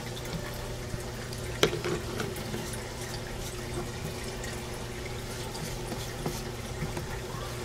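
Aquarium water splashing and trickling steadily over a low, constant hum, the sound of a filter returning water to the tank. A single sharp click comes about one and a half seconds in.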